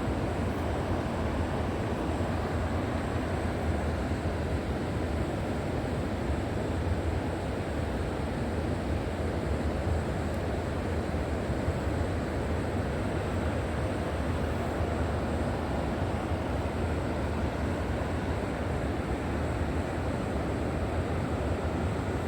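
River water flowing, a steady low rushing with no breaks or changes.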